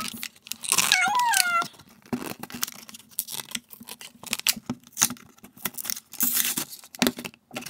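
Toy packaging of card and plastic being torn and pulled open by hand: a run of irregular crinkles, rips and crackles. About a second in there is a short, wavering, voice-like sound.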